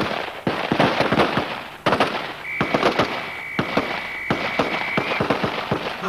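Several assault rifles firing rapid, irregular shots, often overlapping. A steady high tone sounds through the middle for nearly three seconds.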